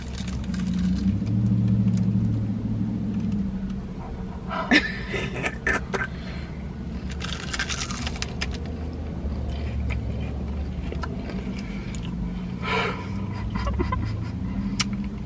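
Paper wrappers around egg rolls crinkling in short bursts while people bite and chew, over a steady low hum in a car's cabin.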